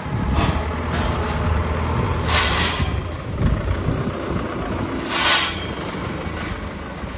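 Forklift engine running steadily as the truck moves with a load of galvanized scaffolding frames, with two short hissing bursts, about two and five seconds in.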